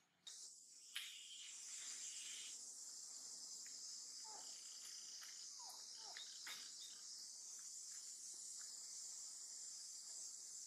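Steady high-pitched chorus of insects, an even unbroken trill.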